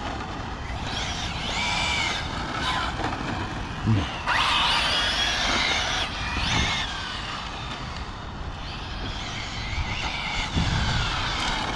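Arrma Felony 6S brushless RC car driving: its motor whine rises and falls in pitch through several bursts of acceleration and slowing, the longest rise a few seconds in, over a steady low rumble.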